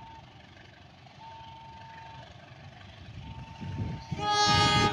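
A level-crossing warning alarm beeps a single steady tone, about a second on and a second off, as a KAI diesel-electric locomotive comes closer with a rising engine rumble. About four seconds in, the locomotive's horn sounds loudly for under a second.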